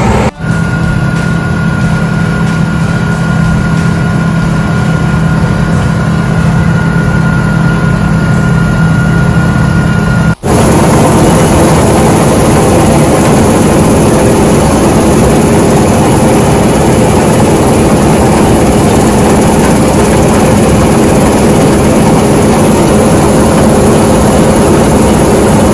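Heavy diesel farm machinery running loudly and steadily. In the first shot a steady high whine sits over a low engine hum. After a cut about ten seconds in, the running noise is louder and rougher.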